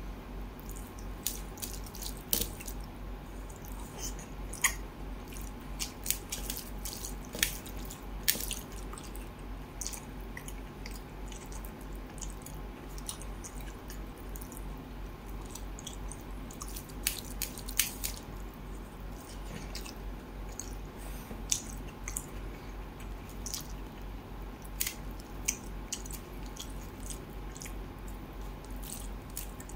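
Wet, sticky sounds of eating rice and fish curry by hand: scattered sharp clicks and smacks as fingers squeeze and mix the rice with curry and pick at the fish. A steady low hum runs underneath.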